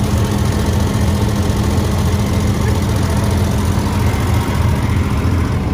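Heavy engine running steadily at a constant speed: an even, deep drone with no change in pitch or load.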